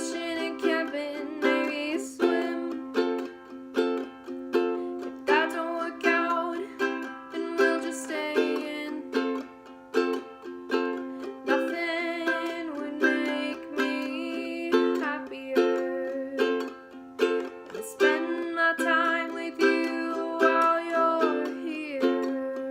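Strummed acoustic string instrument playing a song's chords in a steady strumming rhythm.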